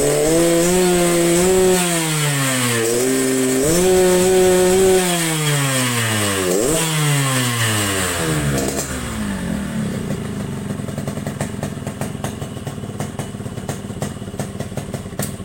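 Yamaha RX-King two-stroke single-cylinder motorcycle engine in the rich 'wet' Medan-style tune known as ngorok (snoring): revved three times, the pitch rising and sliding back down each time, then dropping about nine seconds in to a rough, uneven idle with irregular pops.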